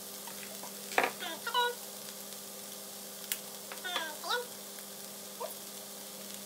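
A pan of minced meat, Brussels sprouts and mushrooms sizzling steadily on the hob, over a steady low hum. A sharp click about a second in and another past the three-second mark, and a few brief wavering pitched sounds.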